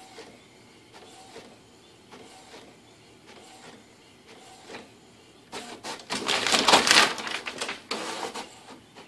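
Inkjet printer printing: the print head carriage sweeps across about once a second with a faint whir. About five and a half seconds in, a much louder rustling clatter of paper and mechanism lasts about three seconds.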